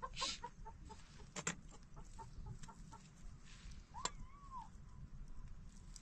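Chickens clucking faintly in short notes, with one longer call that rises and falls about four seconds in, and a few soft knocks.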